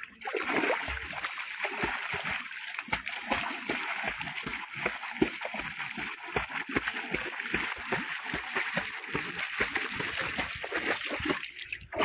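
A Labrador retriever splashing and paddling through shallow canal water, with irregular splashes over a constant rush of churned water.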